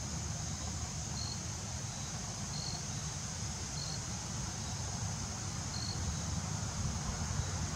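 Steady high-pitched insect chorus, like crickets, with four short high chirps spaced through it and a low rumble of wind on the microphone.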